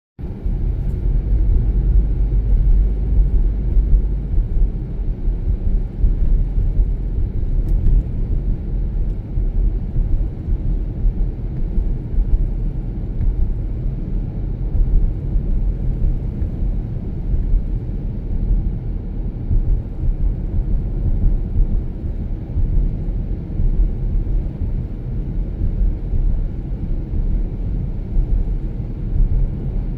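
Steady low rumble of a car driving, road and engine noise with no change in speed heard.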